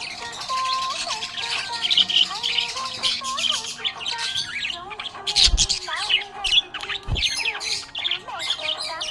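Budgie chirping and chattering in a rapid, continuous warble over background music. Two dull thumps land about five and seven seconds in.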